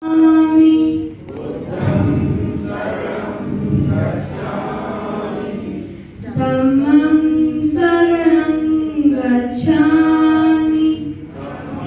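A group of voices singing together in unison, in a slow, chant-like melody with long held notes.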